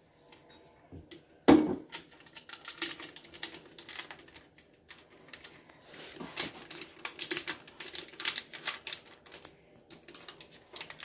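Kitchen utensils clicking and tapping against a mixing bowl as baking powder and rum go into cake batter: a sharp knock about a second and a half in, then quick irregular clicks.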